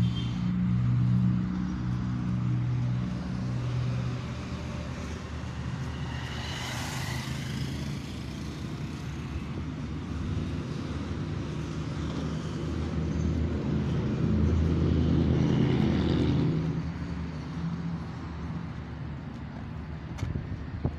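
Road traffic: a motor vehicle engine running steadily with a low hum that grows louder near the start and again about fourteen to seventeen seconds in. A brief rushing swell about seven seconds in, like a vehicle passing.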